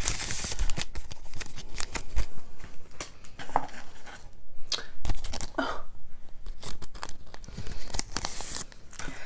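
Paper greeting cards and envelopes being handled: a string of short rustles, scrapes and crinkles, with rip-like tearing sounds.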